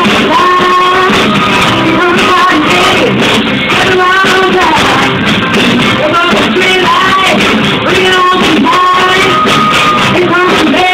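Rock band playing live with a singer's voice over the band.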